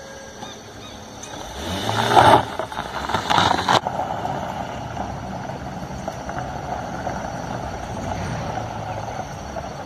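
A small Fiat hatchback drives past on a gravel road, its engine and crunching tyres growing loud as it comes close in the first few seconds. After that a steady drone of engine and road noise runs on.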